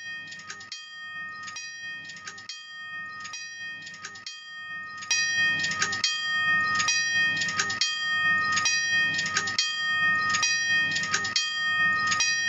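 Railroad crossing bell ringing steadily, a little more than one strike a second, becoming louder about five seconds in.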